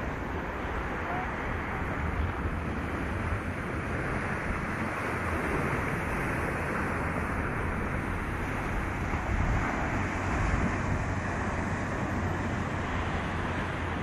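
Storm wind buffeting the microphone in a flickering low rumble, over a steady wash of surf at the seashore.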